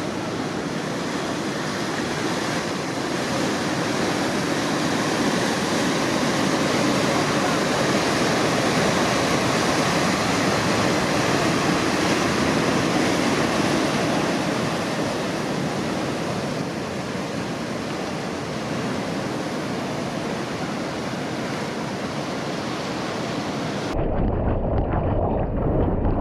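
Ocean surf: a steady rushing wash of breaking waves and moving water that swells a little midway. Near the end it changes abruptly to a muffled, low rumble.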